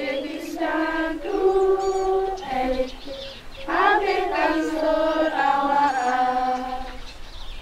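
A girls' choir singing slowly with long held notes, in phrases broken by a short pause about three and a half seconds in.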